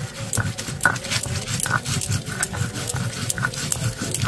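Stone roller grinding dried red chillies, cumin and coriander on a flat stone grinding slab (shil-nora): a rhythmic rasping scrape of stone on stone, about two or three strokes a second.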